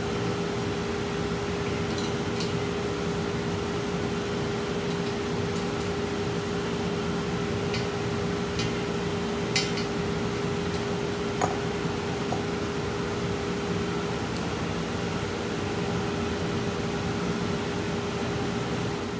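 Steady mechanical hum with one constant mid-pitched tone. Over it come a few light metal clicks, the two sharpest a little before and after halfway, as the steel threaded-rod bearing press tool is handled and taken off the swingarm pivot.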